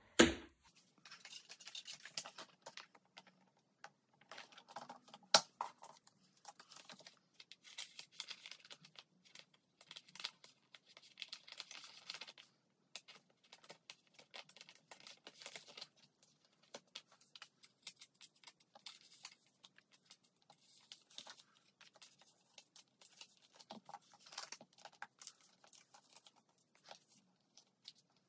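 Clear plastic photocard sleeve pages rustling and crinkling in short, irregular rustles as they are handled and put into a ring binder, with one sharp click, from the binder's metal rings, about five seconds in.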